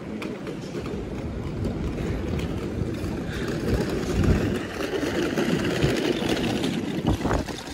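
City street traffic noise, a low rumble that builds to its loudest around the middle and drops off near the end.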